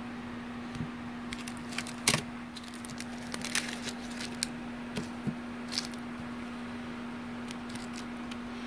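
Baseball trading cards being handled and flipped through: scattered light clicks and rustles, most of them in the first two thirds, over a steady low hum.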